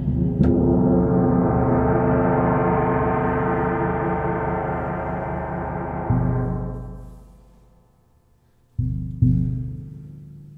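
Large hammered gong played with a soft-headed mallet. After a stroke just under half a second in it rings as a dense, shimmering wash of overtones. A deeper stroke comes about six seconds in, then the gong dies away almost to quiet, and two soft strokes near nine seconds in ring out and fade.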